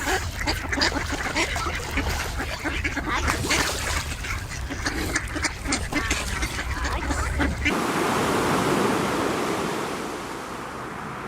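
A crowd of animal calls, many short calls overlapping, until about eight seconds in, when it cuts abruptly to a steady rushing noise like surf or flowing water.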